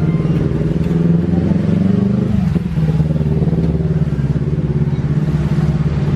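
A motor vehicle engine, likely a motorcycle, running steadily close by: a loud low hum with a brief dip about two and a half seconds in.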